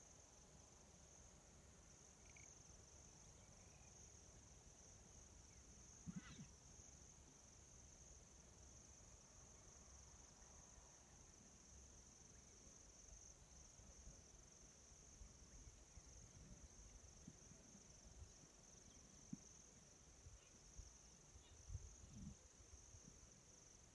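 Faint, steady high-pitched chorus of insects singing in the grass, unbroken throughout, over a low rumble, with a couple of soft knocks about six seconds in and near the end.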